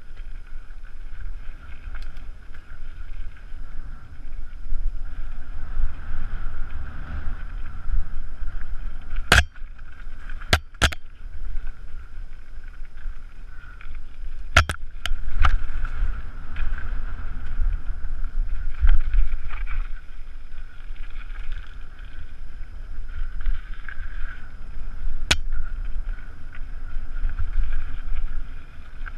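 Mountain bike running fast down a dirt singletrack, filmed from the rider's helmet: a steady rumble and rush of tyres and wind on the microphone, broken by several sharp knocks as the bike hits bumps, a cluster of them about halfway through and one more near the end.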